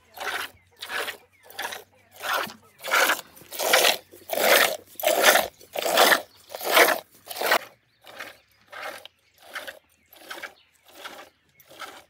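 A camel being milked by hand: rhythmic spurts of milk hissing into a container, about one and a half squirts a second, louder in the middle and fainter near the end.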